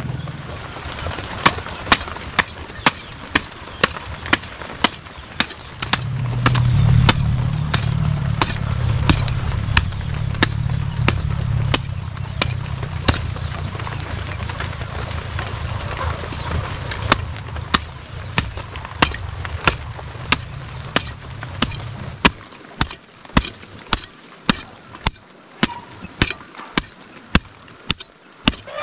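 A hoe chopping into dry, clumpy soil, with sharp strikes at a steady rhythm of about two a second.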